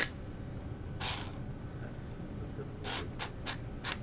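A small student-built robot's mechanism of hobby electric motors and plastic gears clicking and rasping: one click at the start, a short rasp about a second in, then four quick clicks near the end, over a low steady hum.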